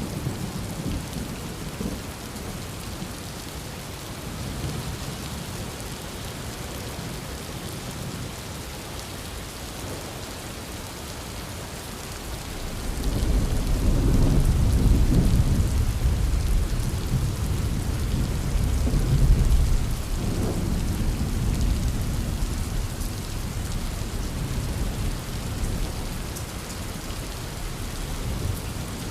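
Heavy rain falling steadily, with a long, deep roll of thunder that builds about halfway through, rumbles for several seconds and slowly fades.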